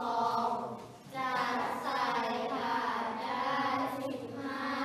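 A class of young schoolchildren reading a maths word problem aloud together in Thai, in a slow sing-song chant, with a brief pause about a second in.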